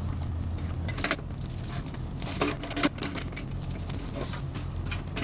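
Kubota KX71-3 mini excavator's diesel engine running steadily, with a few short knocks about one, two and a half and three seconds in.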